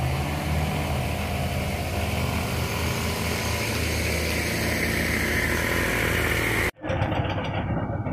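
Car engines and tyre noise from vehicles climbing a steep hill road, steady throughout, cutting off abruptly near the end.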